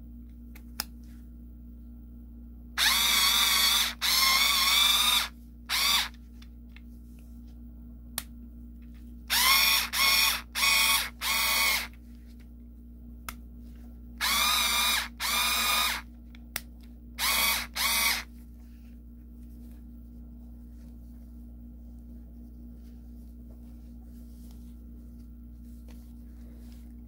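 3.6 V cordless mini screwdriver's motor whirring in about eleven short trigger bursts, some over a second long and others brief, with a few single clicks between them. The bursts stop about 18 seconds in, leaving only a steady low hum.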